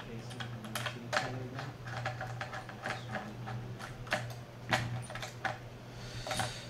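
Hands handling a RED Epic-MX camera body: irregular light clicks and taps of its parts, over a steady low hum.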